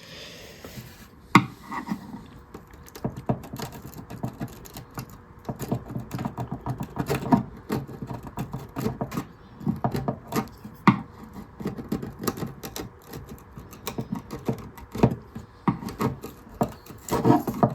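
A hand tool scraping and chipping old filler off a guitar in a run of irregular scrapes and sharp clicks, with a loud click about a second and a half in. The filler is coming off easily, so it is not epoxy but some kind of construction product.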